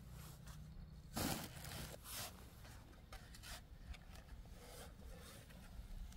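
Scattered rubbing and scraping noises over a low steady hum, the loudest a short scrape about a second in and another just after.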